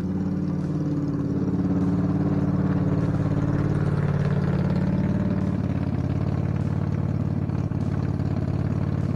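Small engine of a riding mower running steadily as it drives close past, towing a dump cart, with slight shifts in pitch.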